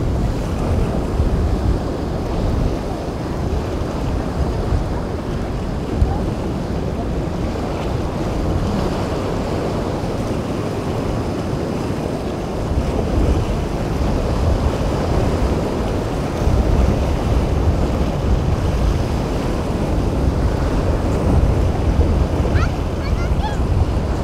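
Wind buffeting the microphone over a steady rush of waves breaking in a rough ocean inlet.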